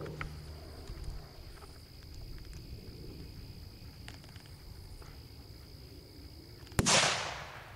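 Homemade electronic salute firework going off near the end: a sharp crack, then a loud hissing burst that fades within about a second. Before it, a steady high thin tone.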